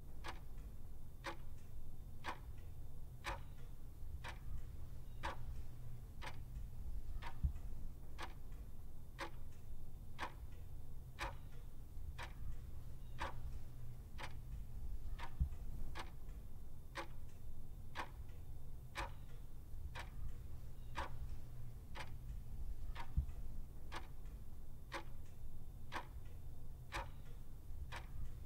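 Clock ticking steadily, about two ticks a second, over a low steady hum.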